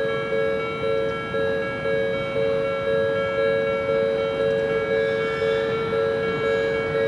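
Japanese railway level-crossing warning alarm ringing, its electronic two-tone ding repeating about twice a second.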